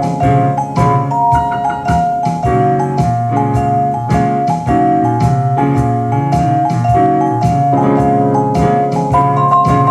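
Jazz music with keyboard chords and a held melody over a steady beat.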